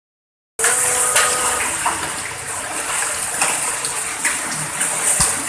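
Hail and heavy rain pelting down: a dense, steady hiss broken by many scattered sharp ticks of hailstones striking.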